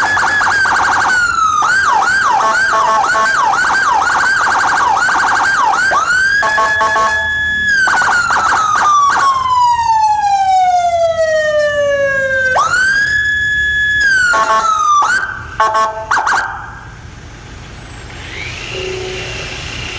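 Whelen IC 200-watt electronic vehicle siren, driven through a QH150 speaker, cycling through its tones: fast yelp sweeps, rising wail tones, a long slow falling sweep, and short bursts of a rapid pulsing tone between them. It cuts off about sixteen seconds in, leaving a much quieter sound.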